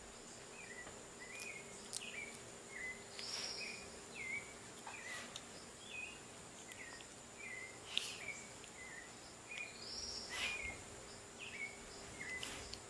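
Faint, repeated short chirping calls, about one or two a second, over a steady low hum, with two longer, higher calls about three and ten seconds in.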